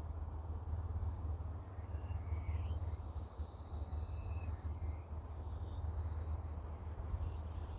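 Small birds singing in short high chirps, with a brief trill in the middle, over a steady low rumble.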